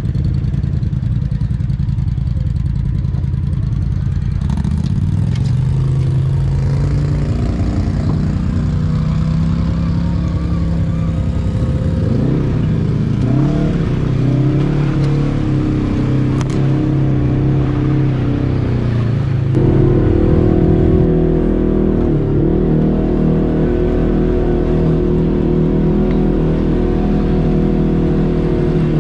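ATV engine heard from on board the quad, running under load on a dirt trail with the throttle opening and easing off. The engine note changes abruptly about two-thirds of the way in.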